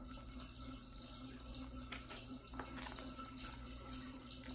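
Quiet room background: a faint steady hiss with a low hum and a couple of soft ticks.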